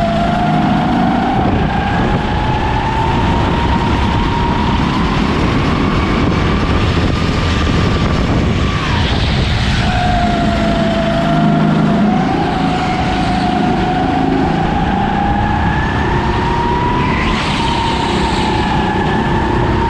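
Racing go-kart running at speed. Its high whine climbs steadily as it accelerates, drops abruptly about nine seconds in as it slows for a corner, then climbs again.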